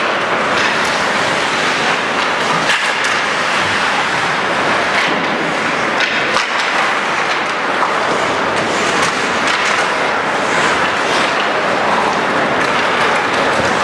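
Ice hockey play: skates scraping the ice under a steady, noisy background, with scattered sharp clacks of sticks and puck.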